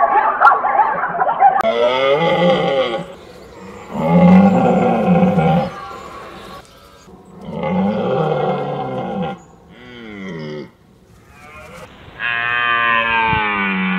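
Red deer stag roaring: about five long, deep calls with short gaps between, each falling in pitch as it ends. These are the bellows a stag gives in the rut. In the first second and a half a zebra's call is still sounding.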